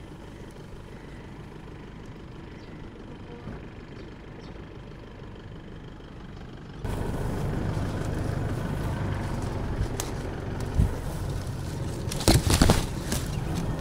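Isuzu D-Max ute's engine running at low speed while reversing with a caravan, muffled at first and then suddenly louder about seven seconds in, with a few short thumps near the end.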